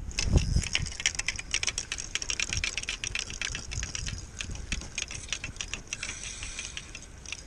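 A heavy thump, then a Pflueger spinning reel clicking rapidly and unevenly as a hooked fish is played and reeled in.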